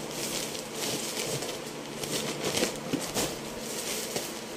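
Plastic poly mailer bags and clothing packaging rustling and crinkling as they are handled and shuffled, in irregular bursts of crackle.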